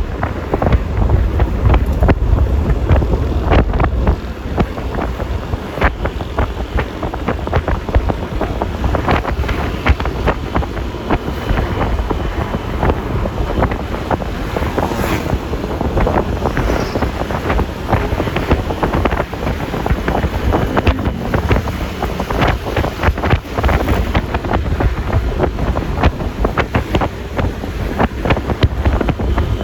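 Wind buffeting the microphone of a phone mounted on a moving Yamaha Lexi LX 155 scooter: a steady low rumble with frequent short crackles, and road and engine noise underneath.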